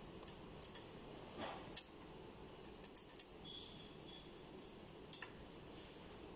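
Light metallic clicks, scrapes and small taps from a hand tool and small screws being worked by hand on a compressor's metal cowl, with a brief high metallic squeak about halfway through.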